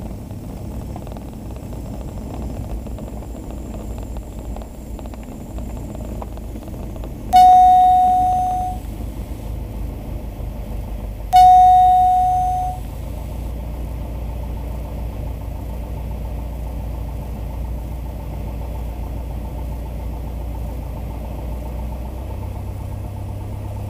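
Tecnam P2010's piston engine and propeller running steadily at low power in the cockpit during the landing rollout. Twice, about four seconds apart, a loud electronic alert tone sounds over it, each about a second and a half long and fading away.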